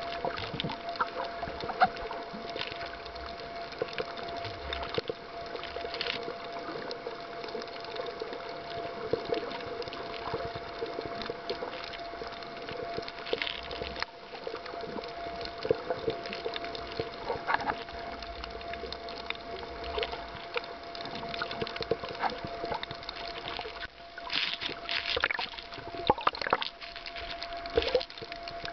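Underwater sound picked up by a submerged camera: a steady hum with one constant tone, under scattered clicks and crackles that grow busier near the end.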